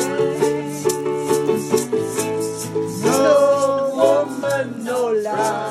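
Ukulele strummed in a steady rhythm of chords, with a voice singing along from about three seconds in.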